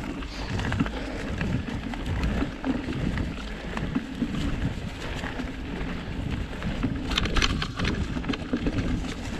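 Wind rumbling on the microphone over the noise of a mountain bike rolling along a dirt trail, with a short run of sharp clicks about seven seconds in.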